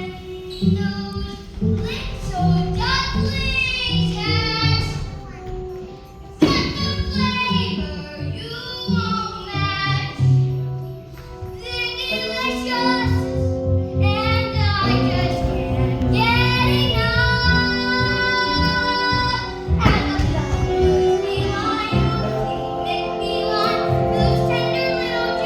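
A child's voice singing a musical-theatre song over instrumental accompaniment.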